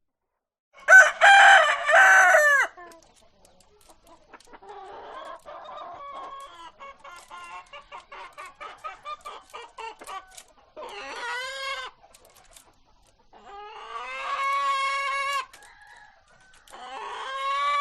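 A rooster crows once about a second in, the loudest sound here. Then hens cluck in a quick run of short notes, followed by three drawn-out calls near the end.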